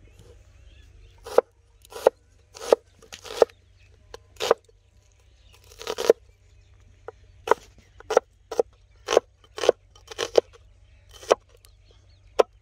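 A broad cleaver-style knife slicing red onions on a wooden chopping board: a run of separate chops at an uneven pace, roughly one to two a second, each cut ending as the blade strikes the board.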